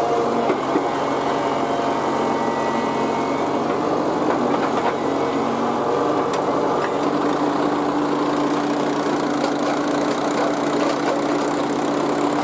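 Diesel engine of a Tata Hitachi EX200 LC excavator running steadily at work, with a few faint knocks.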